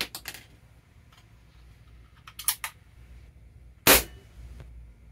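Crosman 2240 .22-calibre CO2 pellet pistol firing once, a sharp crack about four seconds in. A few quieter quick clicks come near the start and about halfway through.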